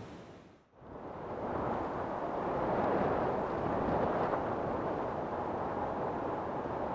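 Steady wind rushing over the microphone. It fades almost to nothing just under a second in and swells back up within a second.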